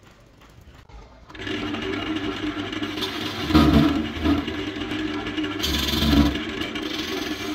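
Wood lathe running with a hand-held turning tool cutting into a spinning disc of wood. The sound starts about a second and a half in and grows louder twice as the tool bites, once about halfway through and again near the end.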